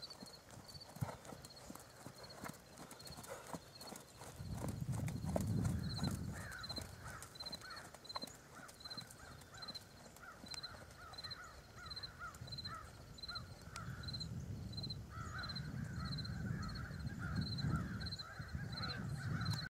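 A horse's hoofbeats on arena sand as it canters and then trots, with a high chirp repeating about twice a second throughout and faster, lower chirping in the second half. A low rumble comes in about four and a half seconds in and again from about fifteen seconds.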